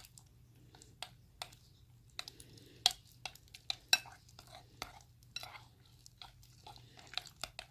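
A spoon stirring slime in a bowl: irregular clicks and scrapes of the spoon against the bowl, with two sharper knocks about three and four seconds in. The slime is glue being activated with laundry detergent.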